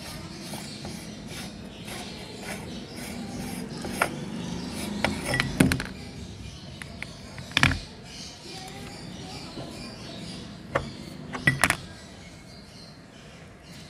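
Handling sounds from taking apart a metal hand-crank meat grinder: its threaded front ring is unscrewed, pulled off and set down on a plastic tray. There are several sharp knocks and clinks, the loudest about four, five and a half, seven and a half and eleven and a half seconds in.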